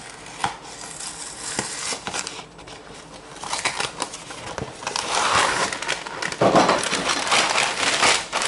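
A cardboard cereal box being opened by hand: crinkling, scraping and small snapping noises from the flaps, growing denser and louder from about halfway through, with plastic crinkling near the end as the sealed cereal bag inside is handled.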